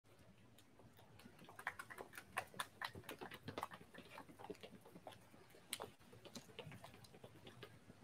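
Footsteps of several people in hard-soled shoes walking on concrete paving: a faint, irregular run of sharp clicks, thickest in the first half and thinning out as they come to a stop.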